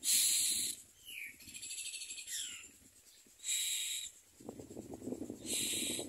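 Common myna nestlings begging: three harsh, hissing calls about half a second long, with short falling chirps between the first two. A low rustling comes in over the second half.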